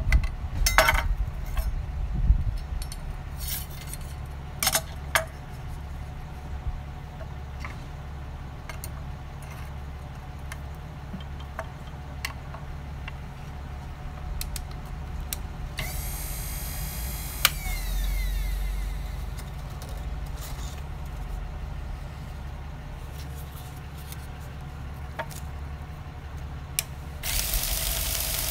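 Metal clicks and clatter as a knife is clamped and adjusted in the jig of an AMK-75 knife sharpening machine, over a steady low hum. Past the middle a short whir falls in pitch. Near the end the machine's sharpening belt starts running with a steady hiss.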